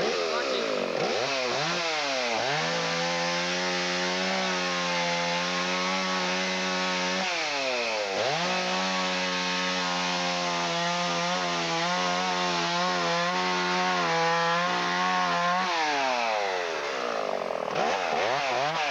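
Chainsaw running at full throttle while cutting wood, its engine note holding steady for several seconds at a time. The revs drop and climb again about 8 seconds in and from about 16 seconds on, as the throttle is let off and squeezed again.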